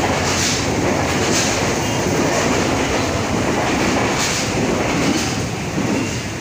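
Electric commuter train running past on the tracks, a steady rumble with a wheel clack about once a second, easing off near the end.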